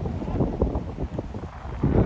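Wind buffeting the microphone: an irregular low rumble with fluttering gusts.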